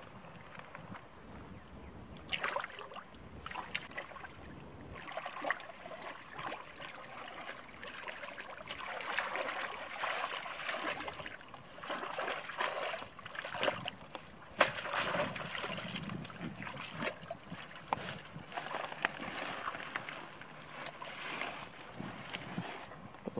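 Hands and legs splashing and sloshing through shallow muddy water while groping in the mud by hand for fish, in irregular surges with a few sharp knocks.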